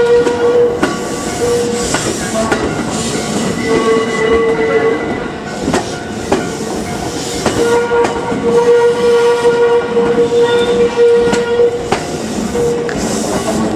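JR Hanwa Line train passing over a level crossing, its wheels clicking over rail joints. A steady ringing warning tone comes and goes over the rumble.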